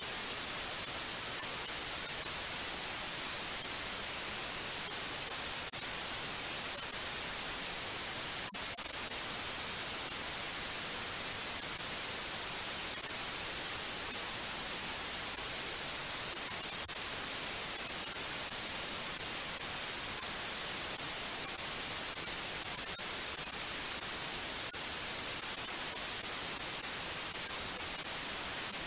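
Steady white noise: an even, unchanging hiss.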